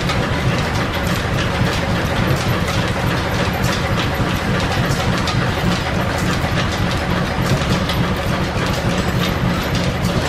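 1925 American 18-inch belt-driven lathe running with a long drill feeding into the spinning workpiece. Steady mechanical clatter with a dense patter of small clicks and rattles.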